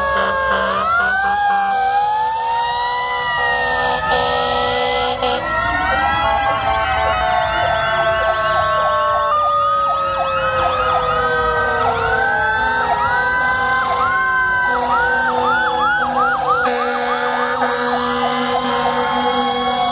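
Several fire-apparatus sirens sounding at once as the trucks pass. Slow rising and falling wails overlap a long, slowly falling tone, and from about ten seconds in a fast, quickly repeating yelp joins them.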